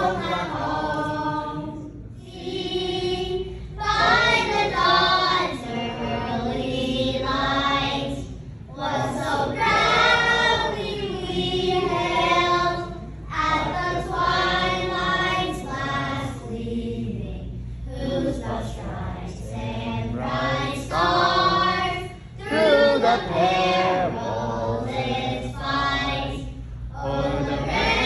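Many voices, men and women, singing an anthem together in long phrases with short pauses for breath between them.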